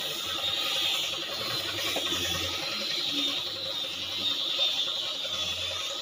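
Steady high-pitched buzzing that wavers slightly in pitch, with no break.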